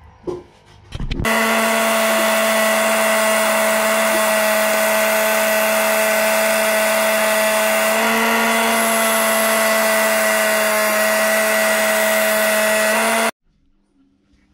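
Electric drill driving a reciprocating saw adapter mounted as a table saw, running steadily at constant speed with a steady whine over rattling noise while the blade cuts a PVC sheet. It starts about a second in after a couple of short knocks and cuts off abruptly near the end.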